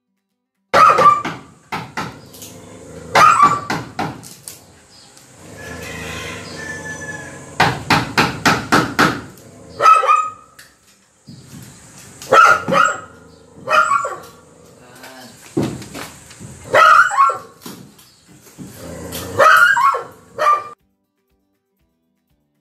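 A dog barking repeatedly, loud, in volleys of several barks with pauses between them; the sound stops abruptly near the end.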